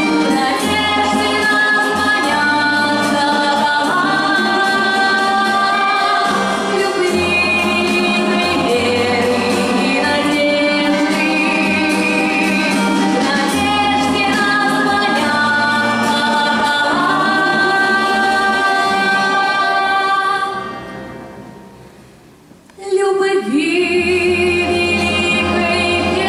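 Music with a woman's singing over an accompaniment, held notes wavering with vibrato over a steady bass. About 20 seconds in the music dies away for a couple of seconds, then comes back in full.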